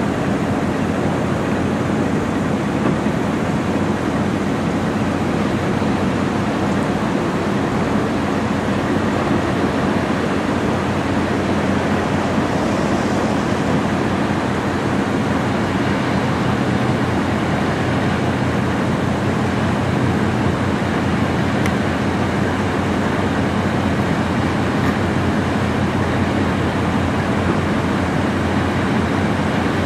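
Steady low drone of a passing Great Lakes bulk carrier's engines, with the rush of water and wind over it.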